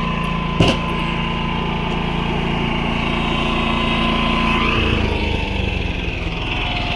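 Predator 11,500-watt inverter generator running steadily, with one sharp knock just over half a second in. About five seconds in, its sound shifts and the low end grows stronger.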